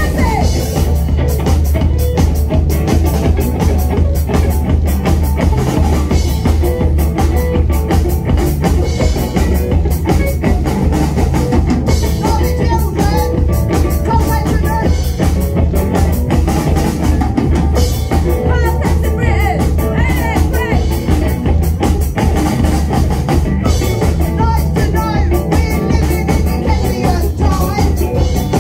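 Live rock band playing loud through a small venue's PA: distorted electric guitar, bass guitar and drum kit, with a lead vocal over the top and a heavy low end.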